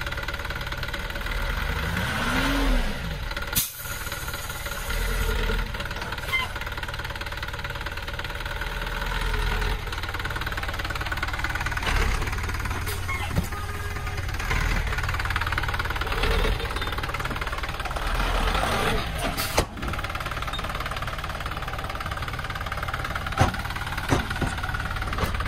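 Hoa Mai light dump truck's diesel engine running steadily while its tipper bed unloads soil, with a brief rev about two seconds in and a few sharp knocks scattered through.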